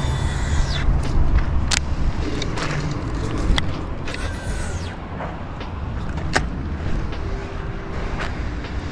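Highway traffic running close by: a steady rumble of cars, with a vehicle sweeping past near the start and another about four seconds in. A few sharp clicks stand out over it.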